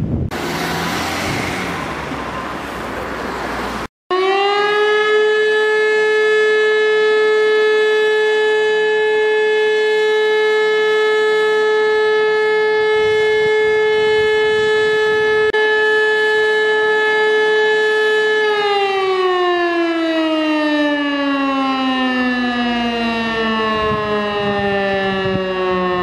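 Wind buffeting the microphone, then, after a cut about four seconds in, an E57 electromechanical civil-defence siren sounding a steady wailing tone during a test alarm. After about fourteen seconds the tone starts to fall steadily in pitch as the siren's rotor winds down.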